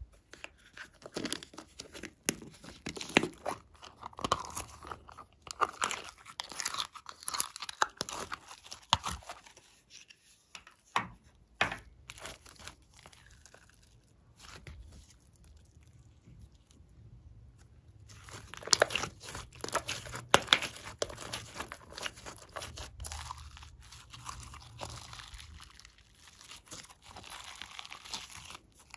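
Glossy slime being squeezed, stretched and folded by hand, giving off dense crackling clicks and small pops. The clicks thin out and quieten for several seconds in the middle, then come back thick.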